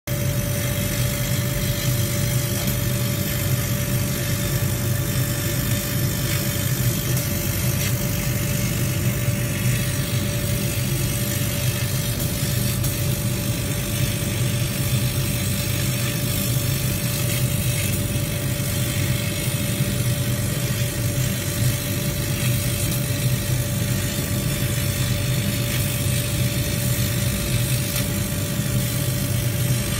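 Laser cutting machine running while it cuts acrylic plate letters: a steady mechanical hum with a constant mid-pitched tone, from its fans and air pump.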